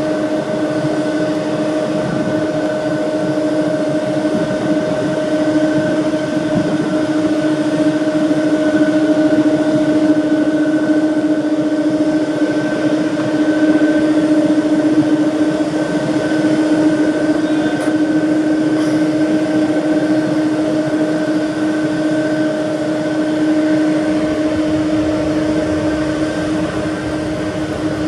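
Boeing 767 airliner on final approach with its landing gear down, the steady whine and rush of its twin jet engines at approach power, with a low hum and a higher tone held at an even pitch.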